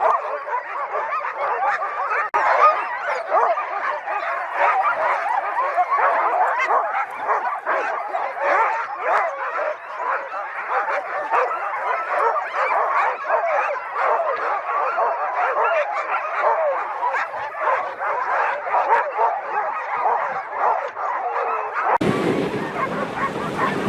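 A large pack of sled dogs barking and yipping all at once in a continuous excited chorus, eager to run. About 22 seconds in it cuts off suddenly to wind buffeting the microphone.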